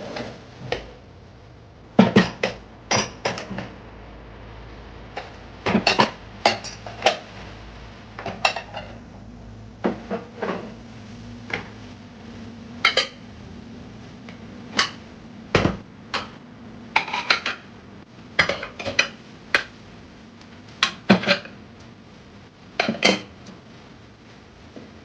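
Dishes and kitchenware clinking and knocking as they are handled and set down, in irregular clusters of sharp clatters, some with a short ring.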